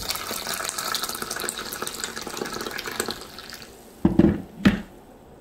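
Boiled water poured into a saucepan of dried hibiscus flowers and madder root, filling steadily for about three and a half seconds and then stopping. Two heavy thumps follow near the end.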